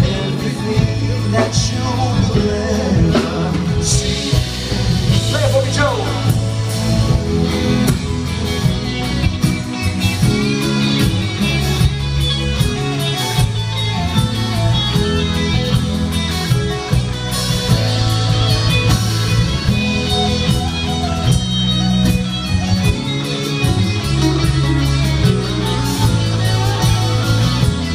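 Live band music, with guitar to the fore over a stepping bass line.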